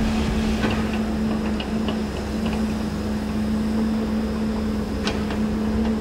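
Steady machine hum holding one constant pitch, with a low rumble beneath and a few faint ticks.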